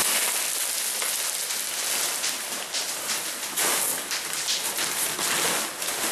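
Expanded clay pebbles (Hydroton) poured from a bag into a plastic grow pot: a dense, rattling hiss full of small clicks as the pebbles tumble onto one another.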